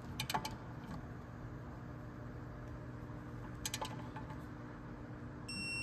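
A steady low hum with two brief clusters of light, sharp clicks about three seconds apart, and a short high electronic beep near the end.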